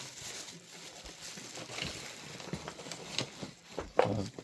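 Faint clicks and light rustling as small scale-model vehicle parts are handled, with a brief louder sound near the end.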